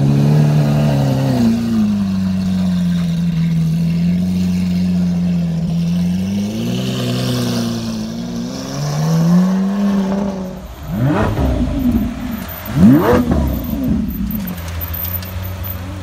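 Lamborghini Aventador V12 engine running with small throttle blips for about ten seconds, then revved hard twice, each rev rising sharply and dropping back. The second rev, about thirteen seconds in, is the loudest.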